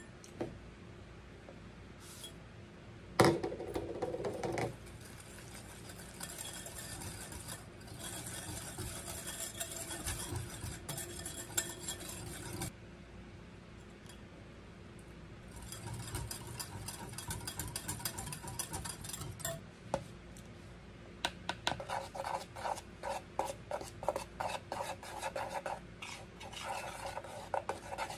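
Wire whisk beating batter in a glass mixing bowl, the wires scraping and clicking against the glass. There is a sharp clink about three seconds in, and quicker, rapid strokes near the end.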